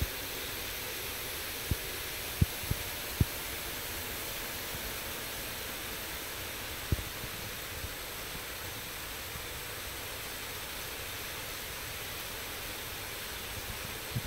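Model freight train running on a floor layout: a steady whirring hiss of the locomotive motors and wheels rolling on the track, with a few sharp clicks in the first few seconds and one more about seven seconds in.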